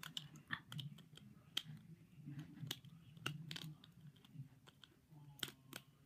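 Faint, irregular clicks and taps of a small plastic toy and its packaging being handled, with two sharper clicks close together near the end.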